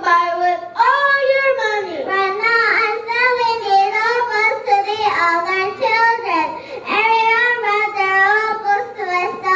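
A young child singing solo, one clear high voice holding and gliding between notes with only short breaths between phrases.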